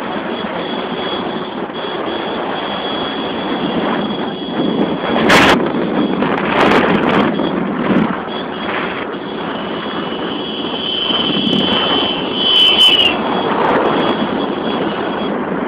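Motorcycle running along the road, heard from the moving bike as a steady rush of engine and wind noise on a phone microphone. A sharp knock about five seconds in, and a brief high falling whine near the end.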